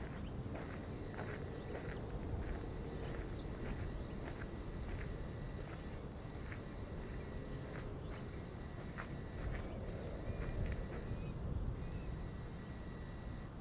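Outdoor ambience: a run of short high chirps repeating about twice a second over a steady low rumble.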